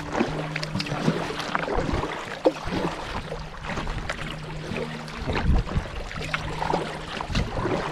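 Canoe being paddled: paddle strokes splashing in the water, with scattered knocks and clicks against the hull. Low steady tones sound underneath.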